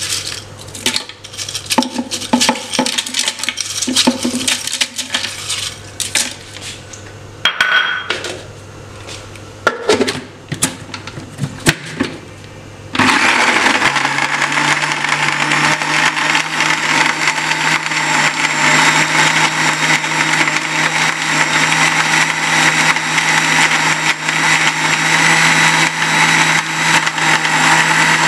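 Ice cubes clinking and knocking into a plastic blender jar. About thirteen seconds in, an electric blender switches on and runs steadily, blending the milkshake, and stops right at the end.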